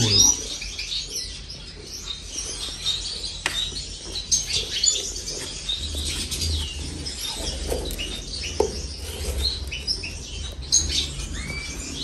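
A roomful of small cage birds (finches, canaries, lovebirds and the like) chirping and calling together, with many short high chirps overlapping throughout.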